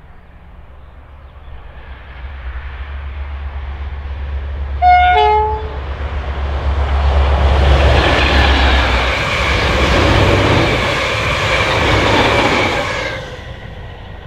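Diesel locomotive approaching with a low rumble. About five seconds in it sounds a short two-tone horn blast, then passes close at speed hauling a rake of coaches, with loud engine and wheel noise that drops away sharply near the end as the train goes by.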